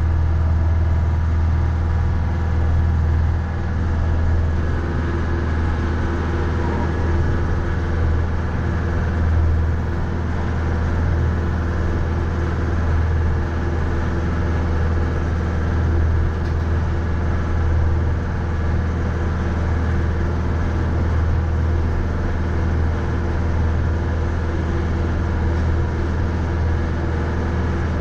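Mahindra 3550 tractor's 50 HP diesel engine running steadily, a deep even drone with no breaks.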